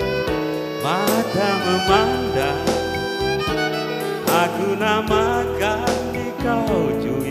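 Live band music: a violin plays a melody with vibrato over electric keyboard accompaniment in a slow pop song.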